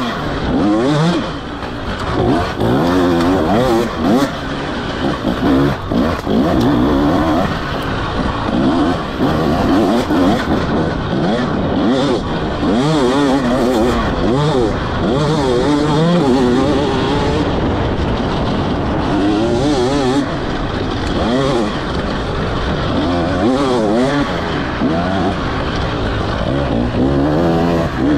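Two-stroke engine of a 2024 KTM 300 XC-W dirt bike with an Akrapovic slip-on exhaust, ridden hard, its revs rising and falling again and again as the throttle is worked on and off.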